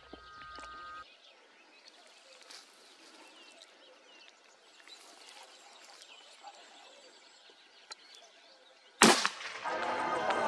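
A single loud rifle shot about nine seconds in, after several seconds of quiet open-field ambience with a few faint bird chirps. Music begins just after the shot.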